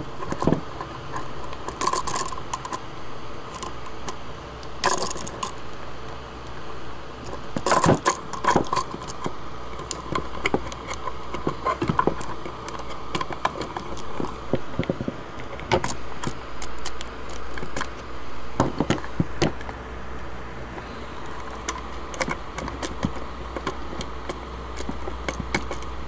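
Irregular clicks and rattles of a three-way light switch, its metal mounting strap and copper wires being handled close to the microphone as a wire is worked onto the switch's screw terminal. The handling noise comes in denser clusters about two, five and eight seconds in.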